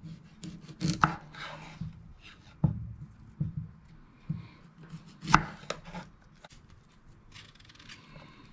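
Knife trimming fresh beetroot on a chopping board: irregular knocks of the blade striking the board, the loudest about a second in and about five seconds in, with fainter scraping near the end.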